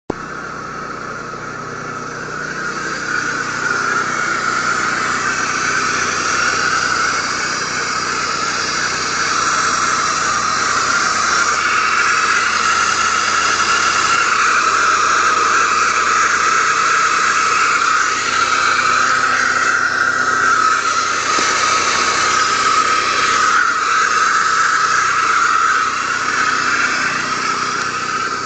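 Saab 9-5 engine running with a loud, continuous high-pitched squeal from a failing idler pulley on the accessory belt drive. The squeal wavers slightly in pitch and grows louder a few seconds in.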